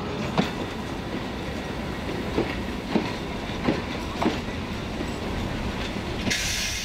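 Steam train rolling along the track, its wheels clicking over rail joints at uneven intervals over a steady rumble. A burst of hiss comes in near the end.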